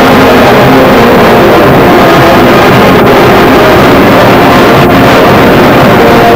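Wind band of trumpets, saxophones and tubas playing a sustained passage, very loud and overdriven in the recording.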